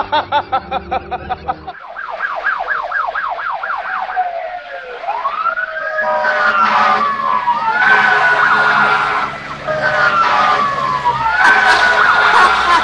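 Emergency-vehicle siren: a fast yelp sweeping up and down about four times a second, then slower rising and falling wails with two tones overlapping.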